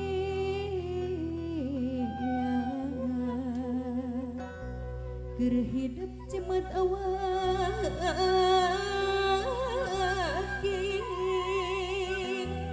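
Sundanese traditional song: a voice singing long, ornamented, wavering phrases over a steady sustained low accompaniment whose pitch shifts about a third of the way in.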